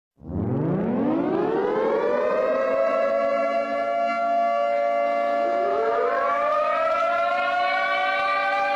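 Civil defense siren winding up from a low pitch to a steady, loud wail rich in overtones. About five seconds in, a second siren tone rises in and settles slightly higher, the two sounding together.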